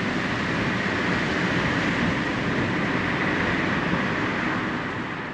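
Steady road noise heard from inside a moving vehicle: tyres and engine at driving speed, fading out near the end.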